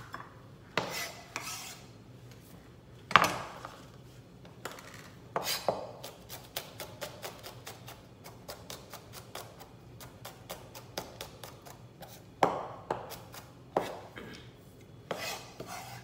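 Chef's knife chopping garlic cloves on a plastic cutting board: a few heavy single chops, then a quick, even run of light taps in the middle as the garlic is minced, then more single chops near the end.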